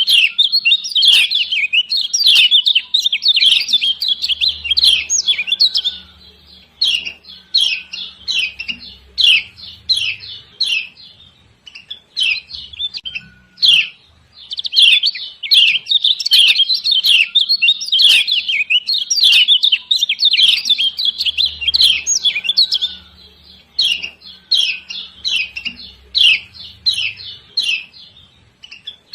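Kecial kuning white-eye giving sharp, high 'ciak ciak' chirps in dense rapid runs that thin out to scattered single chirps twice, then pick up again. These are the female calls used as a lure to provoke other kecial kuning into singing.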